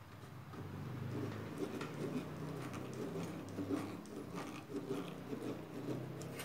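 Screwdriver working a small screw against the sheet-steel frame of an AT computer case: faint, irregular scratching and clicking of metal on metal. The screw is not biting into the hole, as it does not fit the thread.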